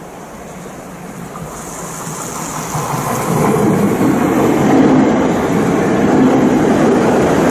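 Hayabusa Shinkansen train pulling into the platform: a rushing rumble that swells steadily louder over the first few seconds, then holds loud and steady.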